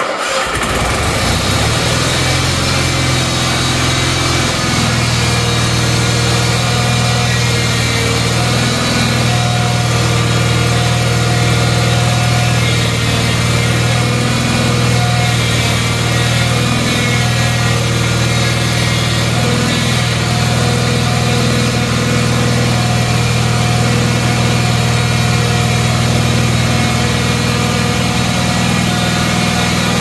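Cub Cadet 782 garden tractor engine starting up, then running steadily. The note is lower for the first few seconds and picks up to a steady run about four or five seconds in.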